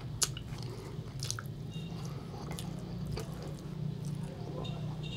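Faint clicks and scrapes of a plastic fork working meat and rice in a plastic takeaway tray, with soft squishy food sounds, over a steady low hum.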